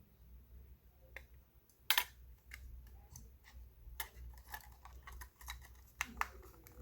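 Scattered sharp clicks and taps of a Clover Flex payment terminal's plastic casing and small parts being handled and worked apart. The loudest click comes about two seconds in, with others around four and six seconds in.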